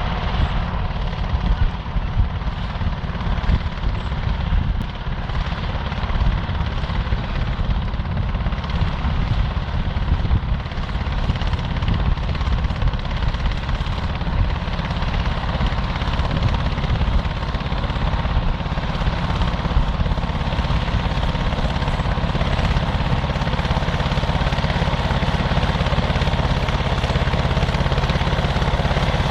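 John Deere 450 crawler dozer running: a continuous, loud, low engine rumble that rises and falls through most of the stretch, then settles into an even, steady drone near the end.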